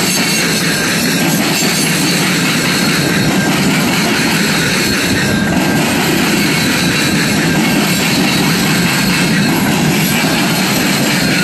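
Freight cars of a mixed freight train (boxcars and tank cars) rolling past close by: a loud, steady rumble of steel wheels on the rails.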